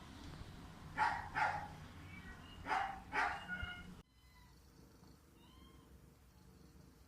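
Cats meowing: four or so loud calls in the first few seconds, then the sound cuts suddenly to a quieter background with a few faint, short high calls.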